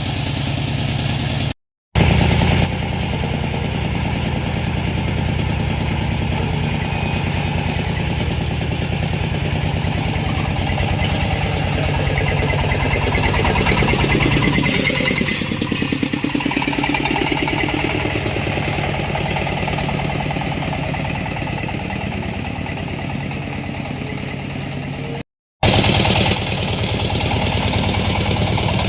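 30 hp Dongfeng single-cylinder diesel engine running steadily, driving a corn sheller on a trial run, with a continuous mechanical rattle. The sound drops out twice, briefly, about two seconds in and near the end.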